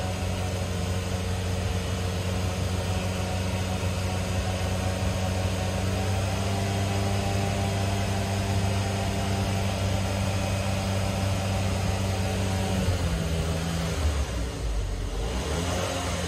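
Mazda MPV's 2.3-litre petrol engine idling steadily while it warms up, before the new thermostat opens and the radiator fan comes on. About thirteen seconds in, the steady hum changes and drops lower.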